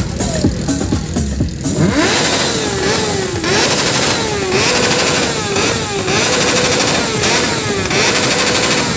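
Sport motorcycle engine revved hard again and again from about two seconds in, held high and dropping back briefly roughly once a second.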